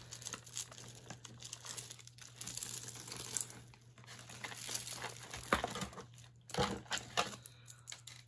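Hands untangling beaded costume-jewelry necklaces: steady rustling and crinkling with many sharp clicks of beads knocking together, busiest from about five to seven seconds in.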